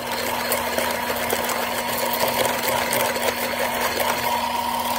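Electric hand mixer with a wire whisk attachment running steadily, beating butter, cream cheese, egg and vanilla into cookie dough in a glass bowl.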